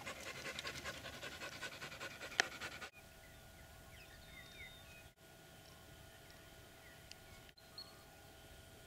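English springer spaniel panting fast and close, about six short breaths a second, with one sharp click about two and a half seconds in. The panting cuts off at about three seconds, leaving a quiet background with a few faint high chirps.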